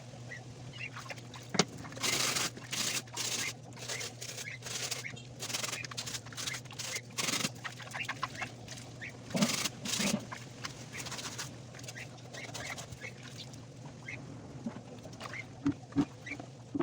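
Sneakers being scrubbed by hand in a run of short rasping strokes, with birds calling in the background over a low steady hum.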